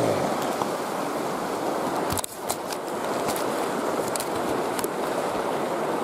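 Mountain river rushing over rocks: a steady wash of water. About two seconds in there is a short knock, followed by a few faint ticks.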